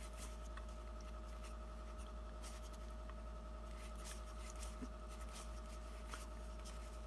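Stiff collectible cards sliding and brushing against each other as a hand fans and shuffles through a stack, in quick irregular rustles, over a faint steady hum.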